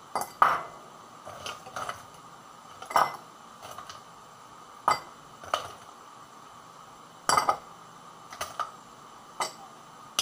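Ice cubes dropped one at a time into a tall drinking glass, clinking sharply against the glass and each other, about a dozen clinks at uneven intervals.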